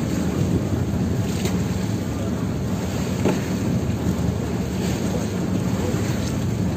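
Outrigger fishing boat's engine running with a steady low hum, mixed with wind on the microphone and a few faint knocks.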